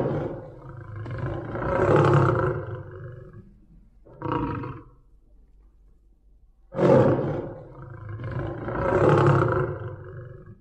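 Big cat roaring twice, about seven seconds apart, with a shorter growl about four seconds in. Each roar starts loud, then swells again about two seconds later. The two roars match in shape, like one recording played twice.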